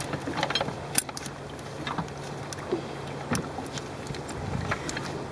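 Handling noises as a fluke anchor is worked into a neoprene anchor case: scattered light clicks and knocks over a steady low hum.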